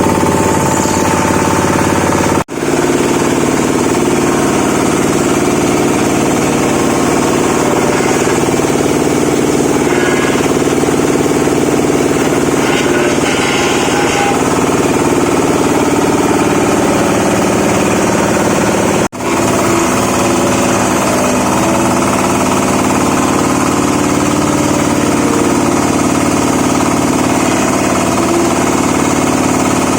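Wood branch shredder machine running steadily, a loud, even engine-and-rotor drone. The sound drops out for an instant twice, once a couple of seconds in and again past the middle.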